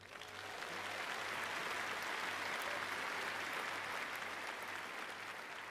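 Large audience applauding. The clapping builds over the first second, holds, and slowly dies away near the end.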